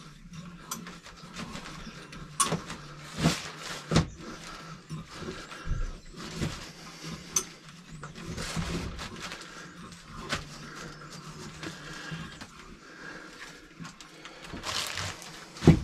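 Rotary tube cutter being turned around a bicycle fork's thick aluminium tube: irregular scraping strokes and clicks as the cutting wheel bites into the metal, with a sharper click near the end.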